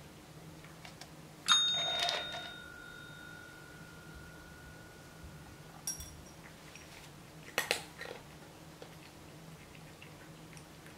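A paw-print call bell (desk service bell) pressed once by the cat, giving a sharp ding whose clear tone rings on for about four seconds. Later come a short click with a brief ring and two quick sharp clicks close together.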